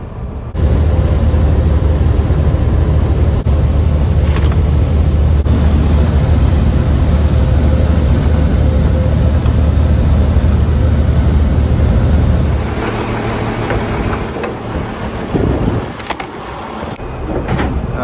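1999 Peterbilt cabover truck driving at road speed: a loud, steady low engine drone mixed with road and wind rush. It drops to a quieter rumble about two-thirds of the way through.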